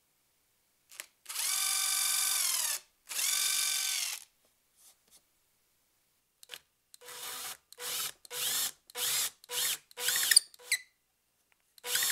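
Cordless drill drilling into plywood: two long runs of about a second and a half each, its motor whine sagging as each run ends. Later comes a quick series of short trigger bursts, about two a second, as a counterbore bit is fed down through a wooden depth-stop jig.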